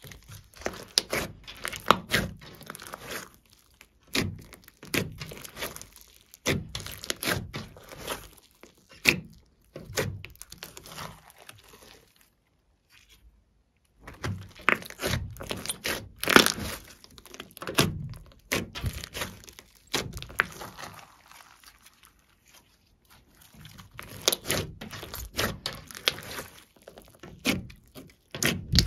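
Hands kneading and squeezing glossy slime packed with mixed-in add-ins, making sticky squelches, pops and crackles in quick, irregular bursts, with a pause of about two seconds roughly twelve seconds in.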